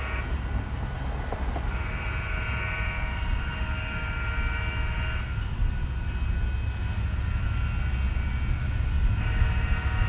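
Diesel freight locomotive's air horn sounding long blasts as it approaches a grade crossing: one long blast a couple of seconds in and another starting near the end. A steady low rumble of the approaching train runs underneath.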